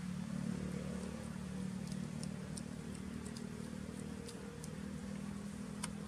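Steady low engine drone, its pitch wavering slightly, with scattered faint high ticks over it.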